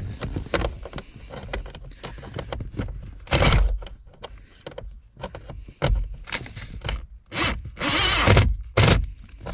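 DeWalt cordless drill-driver running in several short bursts as it drives in the screws that hold a replacement blower motor up under a Jeep Wrangler JK's dash, with small knocks of handling between the bursts.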